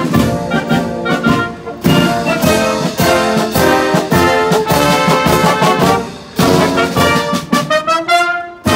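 Brass band music, trumpets and trombones playing a lively tune, with an upward glide near the end.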